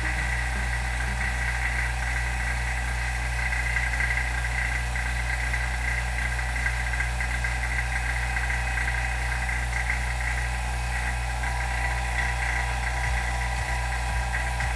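Vacuum pump running steadily, pumping down the chamber: an even hum with a higher whine over it.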